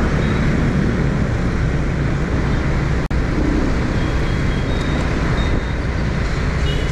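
Motor scooter running at riding speed through street traffic, with steady wind rumble on the microphone. The sound cuts out for an instant about three seconds in.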